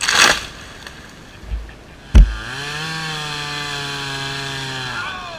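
Chainsaw: a brief rush of noise, then a sharp loud knock about two seconds in, after which the engine runs at a steady high pitch for about two and a half seconds and cuts off suddenly near the end.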